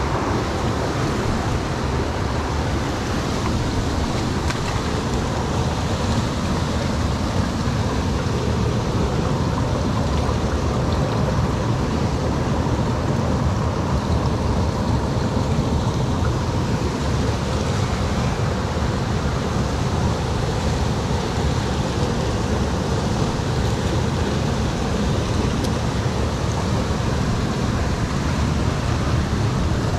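Mountain stream rushing over rocks: a loud, steady wash of flowing water.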